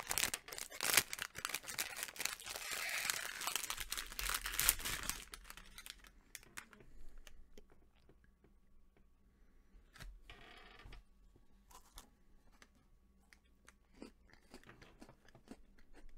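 Plastic cookie packaging crinkling and tearing as it is opened for about the first five seconds. After that it is mostly quiet, with scattered small clicks and one short crunch a little after ten seconds, a bite into a crisp chocolate-coated sandwich cookie.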